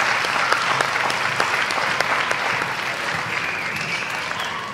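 Audience applauding, a dense patter of clapping with some single claps standing out, slowly dying down.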